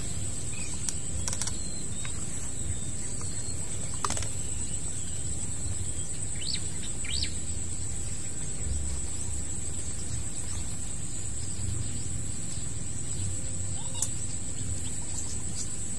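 Pond-side outdoor ambience: a steady high-pitched insect trill, a low rumble, and a couple of short bird chirps midway, with a faint click about four seconds in.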